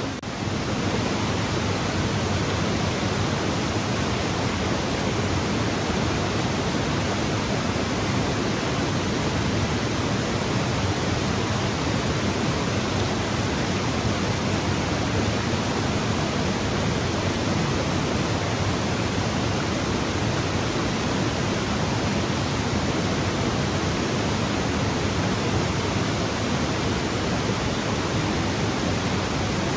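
Waterfall: a steady, full rush of falling water, unbroken throughout.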